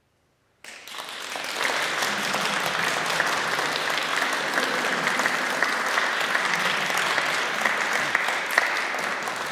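Audience applauding: the clapping breaks out suddenly after a moment of silence, holds steady, and eases off slightly near the end.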